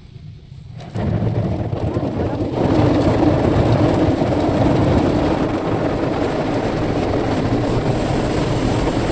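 Automatic car wash's water spray and rotating brushes washing over a car, heard from inside the cabin: a loud, steady rushing and drumming that starts suddenly about a second in and gets louder about two and a half seconds in.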